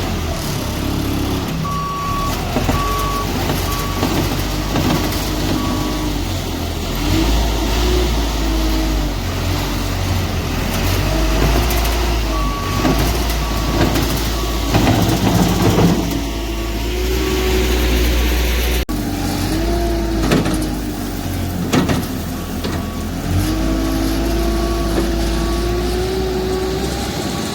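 Large diesel vehicle running and manoeuvring, its engine note rising and falling, while a backup alarm sounds a steady series of single beeps in three runs, near the start, in the middle and over the last third.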